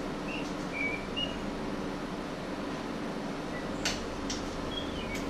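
A camera on a tripod being handled: a few sharp clicks about four seconds in and again near the end, with short high squeaks earlier. A steady room hum runs underneath.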